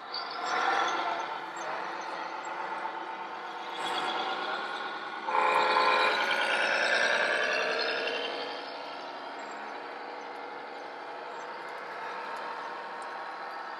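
Radio-controlled model truck's electronic sound module playing a diesel engine sound, swelling loud about five seconds in with shifting pitch, then settling to a steadier, quieter level.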